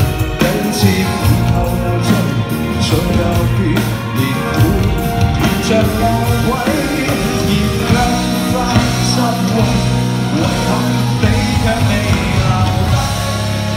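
Live Cantophone rock band performing: electric guitars, bass and drum kit, with a male lead singer singing the Cantonese lyrics, heard from the audience in a large arena.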